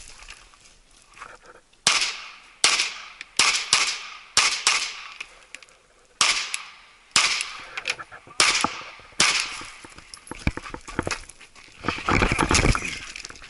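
Handgun shots fired during an IDPA stage: about a dozen sharp reports from about two seconds in to about nine seconds in, in quick singles and pairs, each with a short echo tail. A dense clatter of noise follows near the end.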